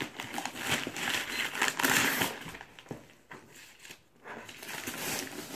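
Wrapping paper crinkling and tearing as it is pulled off a cardboard box by hand, in uneven bursts, loudest about two seconds in.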